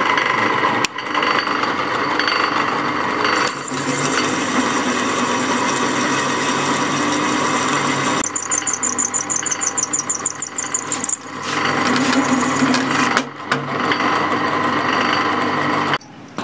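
Electric drill running as a bit cuts through a threaded metal plug. Its steady whine breaks off briefly a few times, and a rapid high-pitched squealing chatter comes in for about three seconds past the middle.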